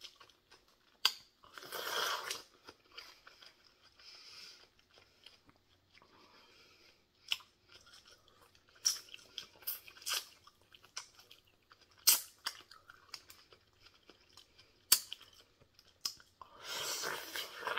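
Close-up chewing and crunching of a crisp raw cucumber slice, with sharp crunchy bites every few seconds between softer wet chewing.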